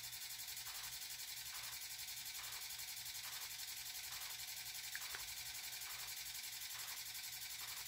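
Quiet room tone: a steady hiss and low hum with a faint, even pulsing a little more than once a second, and a tiny click about five seconds in.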